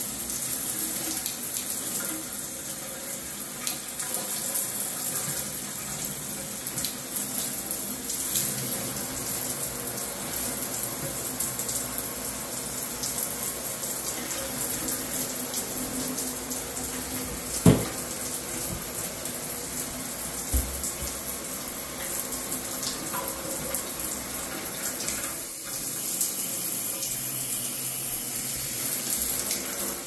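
Handheld shower head spraying water onto the walls and floor of a shower enclosure, a steady hiss of running water. A single sharp knock about two-thirds of the way through, and a softer thump shortly after.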